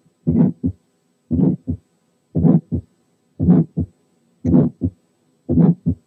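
Heart sounds from auscultation over the pulmonary area, a little under one beat a second. Each beat is a first sound that runs into a short ejection systolic murmur, then a normal second sound. The murmur is functional, a flow murmur and not a valve lesion.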